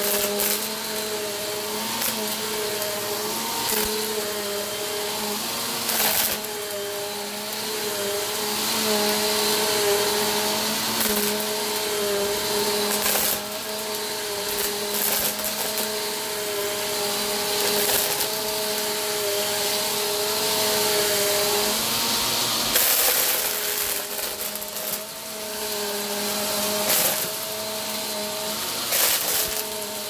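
Upright bagless vacuum cleaner running on carpet, a steady motor hum with its brushroll sucking up small plastic beads, which click and rattle sharply as they are pulled into the bin.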